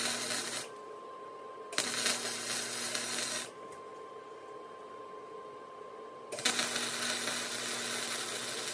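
Electric arc welding on steel: three bursts of crackling hiss as an angle brace is welded onto the go-kart's brake bracket. The first stops about half a second in, the second runs for about a second and a half from about two seconds in, and the third starts near the end.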